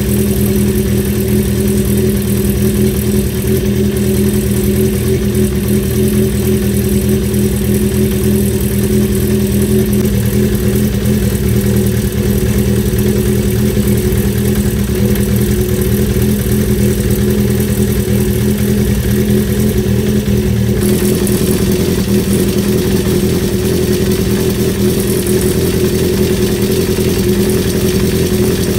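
Honda CB350 Four's air-cooled inline-four engine idling steadily, with mechanical noise from the top end. The tone shifts slightly about ten seconds in and again about twenty seconds in.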